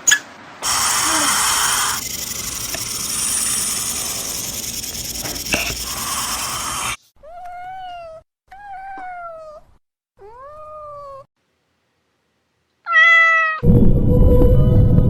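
A domestic cat meowing: three drawn-out meows that rise and then fall, then a shorter, higher meow. They come after several seconds of a steady, rough hiss-like noise, and a loud noisy sound starts near the end.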